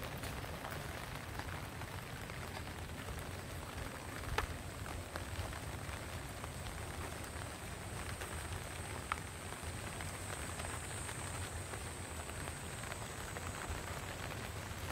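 Rain pattering steadily, with many small drop ticks and two sharper taps, one about four seconds in and one about nine seconds in.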